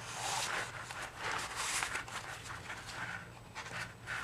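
Paper and cardstock pages of a handmade mini scrapbook album rustling and sliding as they are handled and turned, in several uneven swells.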